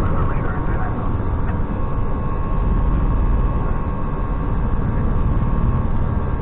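Steady rush of airflow and jet engine noise heard inside an Airbus A320 cockpit in flight, with a faint steady hum on top.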